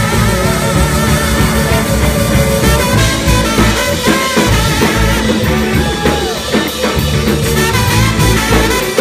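Live blues-rock band playing: drum kit and bass keep a steady beat under a lead melody line that bends in pitch.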